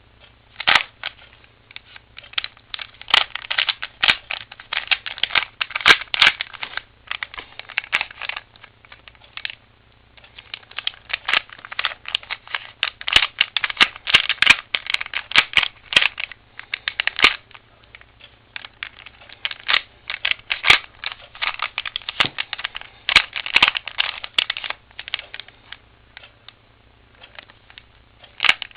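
3x3x3 Rubik's Cube being turned by hand: fast runs of plastic clicks and clacks as the layers rotate, in bursts with short gaps, a longer pause about ten seconds in and another near the end.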